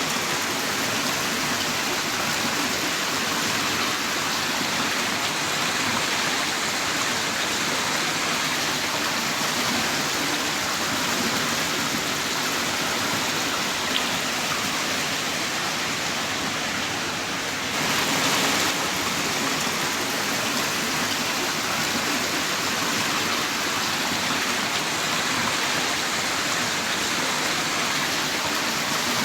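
Heavy rain pouring down in a steady, dense hiss, briefly a little louder around two-thirds of the way through.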